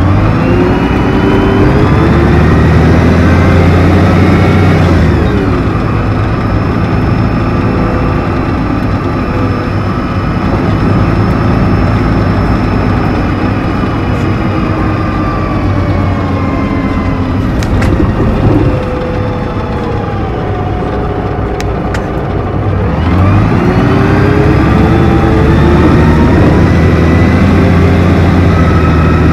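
Neoplan N4426/3 Centroliner double-decker bus's Mercedes OM 501 LA V6 diesel and Voith Diwa 864.3E automatic gearbox, heard close up at the gearbox hatch. It pulls away with rising engine and gearbox whine and shifts about five seconds in, then the pitch winds slowly down. A knock comes near the two-thirds mark, then a quieter stretch, and near the end it pulls away again with rising whine.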